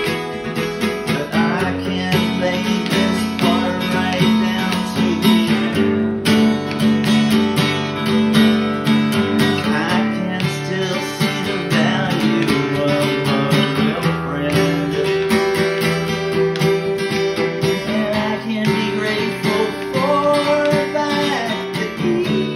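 Acoustic guitar strummed and picked in a steady song accompaniment, with a man's voice singing along in places.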